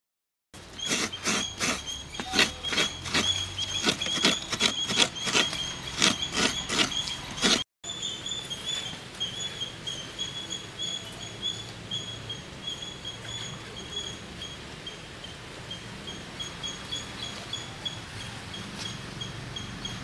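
Wood fire crackling under a cooking pot, with sharp irregular pops for about the first seven seconds. A high, steady chirping runs throughout and carries on alone after the crackling stops.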